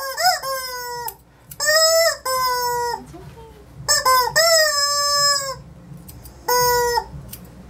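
Small dog crying out in a string of about six drawn-out, high-pitched howling whines, each up to about a second long and dropping slightly in pitch, with short pauses between. It is protesting while its face is held and trimmed with scissors.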